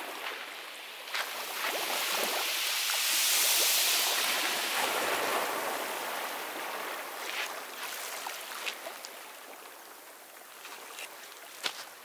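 Sea surf breaking on a beach: a wash of noise that swells about a second in, is loudest around three to four seconds, then slowly dies away, with scattered small clicks and one sharper click near the end.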